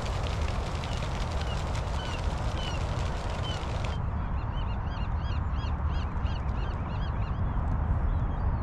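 Birds calling over a steady low rumble. There are a few scattered short calls at first, then from about four seconds in a fast run of repeated short, arched calls.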